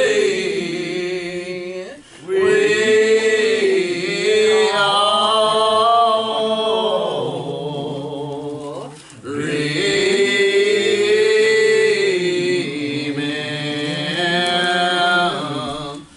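A church congregation singing a hymn a cappella in slow, long-drawn notes, many voices together with no instruments. The singing breaks off briefly about 2 seconds in and again about 9 seconds in, between phrases.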